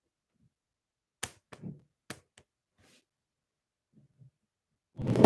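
A few light clicks and knocks, then a louder thump near the end, from something off-camera.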